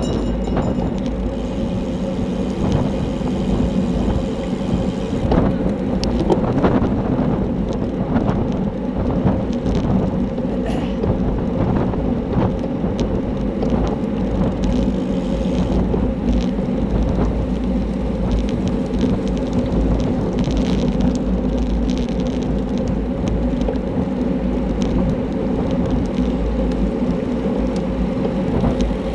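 Steady wind rush on a handlebar-mounted camera's microphone, mixed with tyre and road noise from a racing bicycle at speed, with a few faint ticks.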